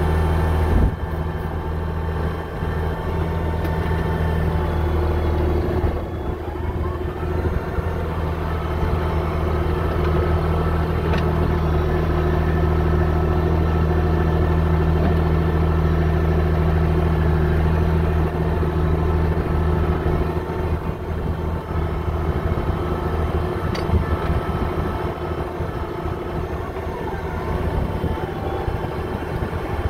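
Heavy engine of a machine with a dozer blade, running steadily, its note dipping and shifting a few times.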